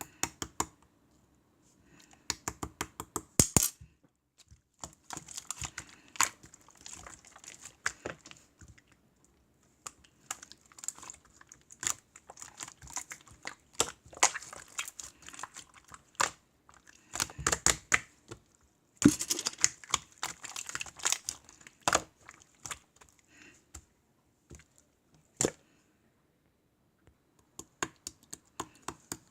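Irregular bursts of small clicks and taps mixed with rustling, separated by short pauses, with a longer lull near the end.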